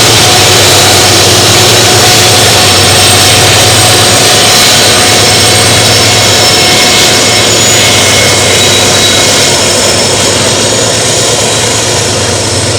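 Diesel-electric locomotives of a loaded freight train working at full power (notch 8) up a steep grade: a loud, steady engine din with a high steady whine on top, easing off slightly near the end.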